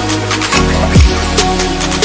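Electronic dance music with a heavy bass line and falling bass drops about a second apart.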